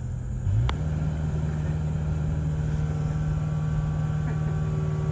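Excavator engine running steadily, stepping up in speed about half a second in and then holding, with a single sharp click just after.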